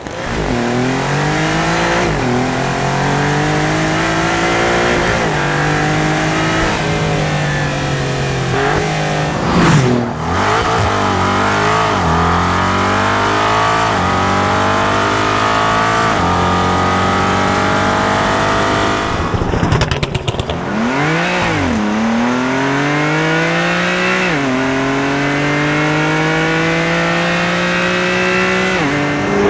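High-performance car engine accelerating hard through the gears: the pitch climbs steadily, then drops back at each upshift every two to three seconds. The run breaks off abruptly twice, about ten and twenty seconds in, and after the second break there is a quick rev that rises and falls before the pulls through the gears resume.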